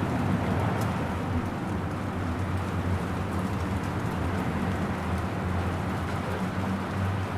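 Steady rain falling in a suburban setting, an even hiss with faint scattered drop ticks, over a low steady rumble.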